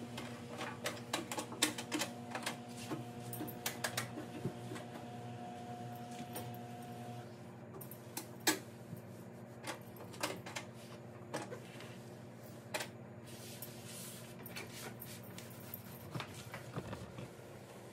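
Scattered light clicks and taps of a microwave oven being cleaned by hand, thicker in the first half and sparser after, over a steady low hum.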